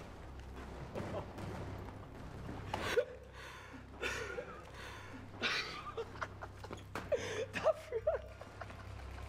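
Film soundtrack: a steady low rumble of ambience with several short, separate vocal sounds and breaths from a man, no music yet.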